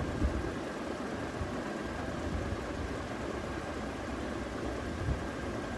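Steady low rumbling background noise with a faint high hum, and a soft low thump about five seconds in.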